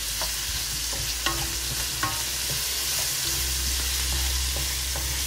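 Pork and sliced onions sizzling in oil in a wok as they are sautéed to brown, stirred with a wooden spatula. A few sharp scrapes and taps of the spatula against the pan come near the start, about a second in and about two seconds in.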